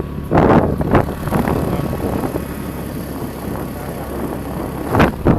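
A road vehicle running steadily with a low engine and road rumble, and a few short louder jolts, about half a second in, at one second and near the end, as it travels a rough road.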